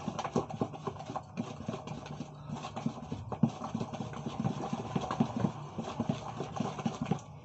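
A wooden spoon beating thick ground-bean akara batter in a plastic bowl: quick, irregular knocks and wet slaps several times a second as the batter is whipped to work air in. A steady low hum runs underneath.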